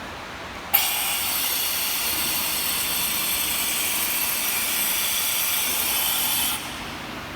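Takeda Machinery TK24S-2000MV-10 machine tool running: a steady, high hiss with several thin whining tones in it, starting abruptly about a second in and cutting off about six seconds later.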